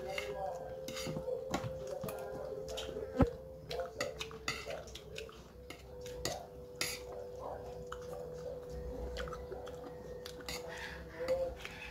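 Chewing and mouth sounds of someone eating by hand, with light clicks and clinks from a plate and a sharp knock about three seconds in, over a steady hum.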